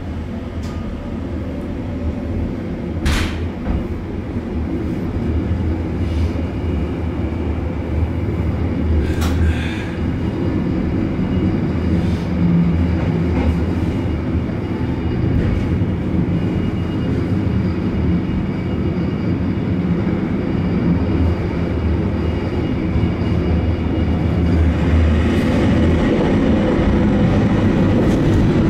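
Rhaetian Railway narrow-gauge train running on the Bernina line, heard from aboard: a steady rumble of wheels on rail with a few sharp clicks, and a higher squeal near the end.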